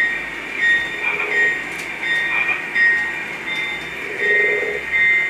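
Lionel model train running along the layout track, with a steady high whine and a regular swell about once a second as the cars roll past.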